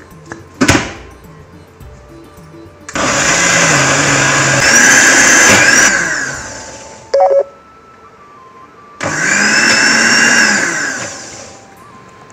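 Countertop glass-jar blender grinding soaked rice, lentils and beans into a coarse batter. It runs in two bursts of about three seconds each, and the motor winds down after each one. There is a sharp knock near the start.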